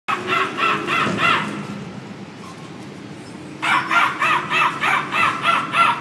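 A man imitating a bird call through his cupped hands, with quick repeated calls at about four a second. They come in two runs: a short one at the start, then a longer one from about three and a half seconds in.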